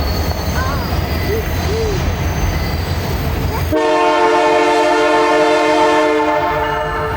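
Train rumbling along with a few short wheel squeals, then the locomotive's multi-note air horn sounds one long blast starting about four seconds in and lasting about three seconds.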